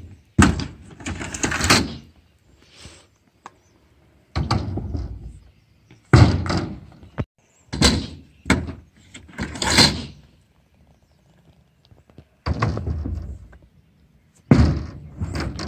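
Stunt scooter wheels rolling over concrete and a skatepark ramp, with sharp knocks of the deck and wheels landing and hitting edges, in several short bursts with quiet gaps between.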